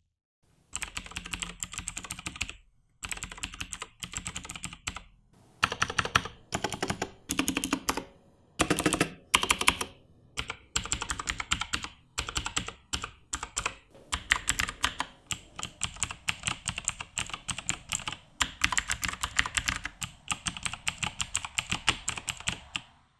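Typing on a VAVA Chroma RGB mechanical keyboard with clicky Kailh blue switches: rapid keystrokes in bursts with short pauses between them, running into a long, fast, unbroken stretch of typing in the last third.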